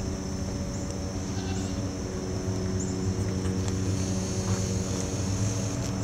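A steady low mechanical hum, such as an idling engine, growing a little louder about two and a half seconds in.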